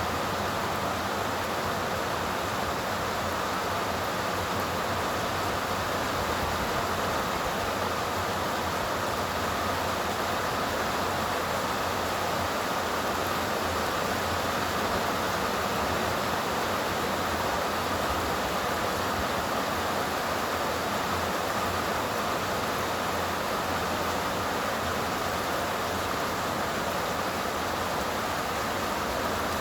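Steady rain falling in a summer storm, an even hiss that holds the same level throughout.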